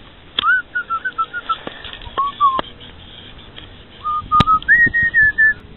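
A person whistling a tune in short held notes that step up and down, with a few sharp clicks among them.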